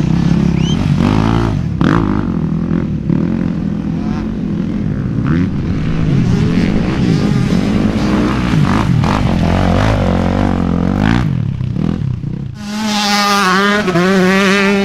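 Motocross dirt bike engines revving hard under load as the bikes labour and spin their rear wheels through deep mud, several engines overlapping. Near the end the sound changes to a single bike's engine revving, its pitch wavering up and down.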